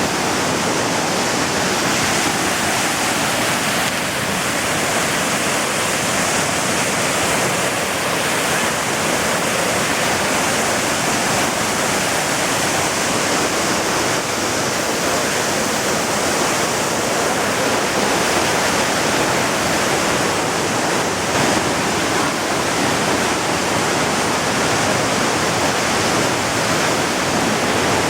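Waterfall pouring into a pool: a steady, loud rush of falling water.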